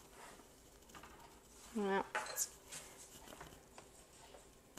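Scattered light clinks and taps of a metal measuring spoon and a glass bowl as a tablespoon of vinegar is measured out and added. There is a brief hum from a woman's voice just before two seconds in.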